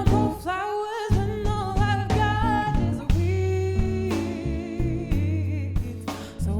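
A woman singing a slow, soulful song with vibrato, accompanied by strummed guitar and a bass line.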